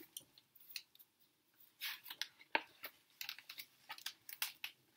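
Faint rustling and crinkling of a paperback picture book's pages being handled and turned: a run of short papery clicks starting about two seconds in.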